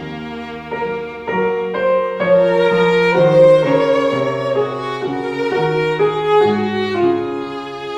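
Slow instrumental music: a violin melody moving over held lower string notes.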